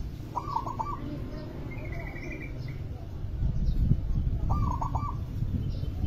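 Zebra dove cooing: two short bursts of quick staccato coos, one near the start and one about four and a half seconds in, with a brief higher trill between them, over a low rumble that grows louder in the second half.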